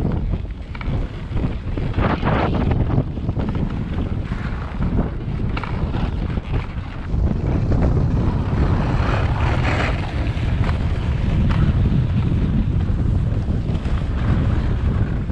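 Wind buffeting the microphone of a camera riding a moving dog sled, a steady low rumble, with the sled's wooden runners scraping and hissing unevenly over packed snow.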